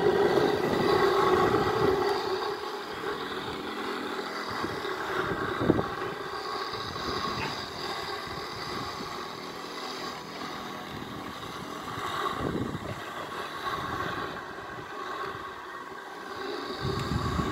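3D-printed robot lawn mower running while it mows: a steady whine from its electric motors, with a few brief knocks.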